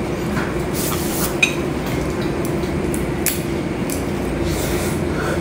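Light tableware handling: a few short clicks and brief rustles as wooden chopsticks and dishes are handled on the table, over a steady low background hum.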